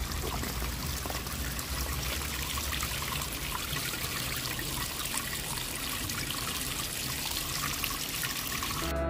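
Water of a stream flowing steadily, an even rushing trickle.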